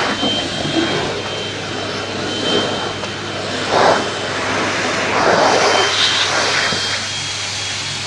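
Vacuum cleaner running steadily with a thin high whine, its floor nozzle being pushed over a cat's fur; the noise swells briefly twice, midway and again a little later.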